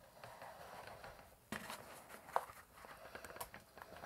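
Hand-cranked pasta machine, used as a print press, rolling a paper-and-foam print sandwich through its steel rollers: faint rubbing with a few irregular clicks and knocks, the clearest about one and a half and two and a half seconds in.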